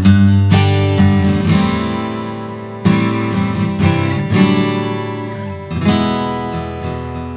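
Taylor Gold Label 814 Super Auditorium acoustic guitar with a koa back, strummed. Chords are struck every second or so and left to ring out and fade between strums.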